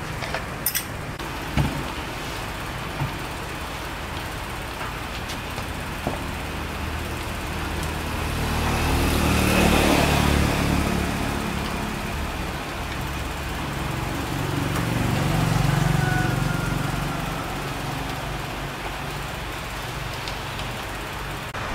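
Steady low background rumble that swells and fades twice, the way passing traffic does, with a few small clicks in the first few seconds.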